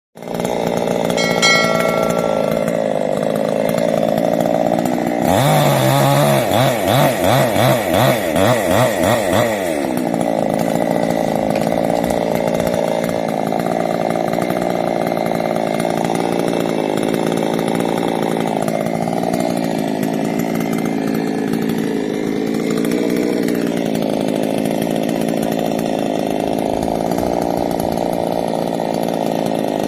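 Chainsaw engine running throughout. For a few seconds about five seconds in, it pulses in quick surges about twice a second as the throttle is worked, then settles back to a steady run.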